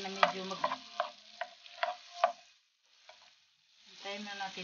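Wooden spatula stirring garlic frying in butter in a black frying pan: scraping strokes against the pan with sharp clicks as it knocks the metal. The stirring pauses for about a second midway, then starts again.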